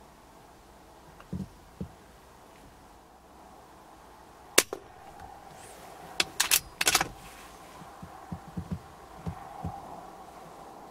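A single sharp crack of a .22 BSA Super 10 pre-charged air rifle firing, a little under halfway through. About a second and a half later comes a quick run of several sharp clicks, with a few soft knocks before and after.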